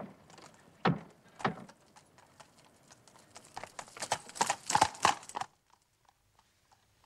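Horse's hooves clip-clopping as a horse-drawn cab sets off, the strikes coming thicker and faster toward the end. The hoofbeats stop suddenly about five and a half seconds in.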